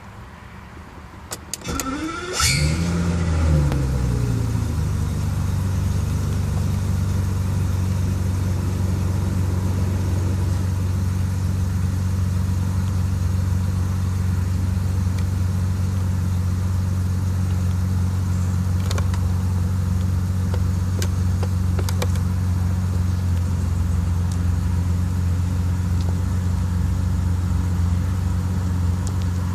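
BMW M73 5.4-litre V12 started from cold: a few clicks, a brief crank about two seconds in, then the engine catches with a short rev flare and settles into a steady idle. This is the idle the owner reports as shaking, with diagnostics logging random misfires across all cylinders.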